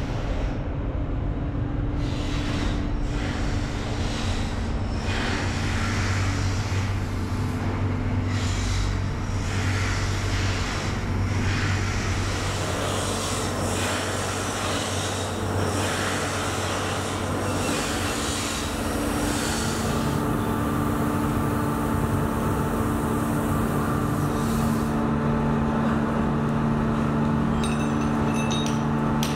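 Steady drone of running factory machinery. The hum shifts pitch a few times, and irregular clattering runs through the first half.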